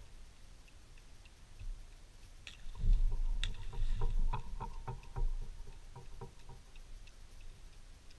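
Fishing reel being cranked on a kayak: a couple of sharp clicks, then a few seconds of rapid ticking and knocking from the reel and rod handling, with low thumps of the angler moving in the kayak.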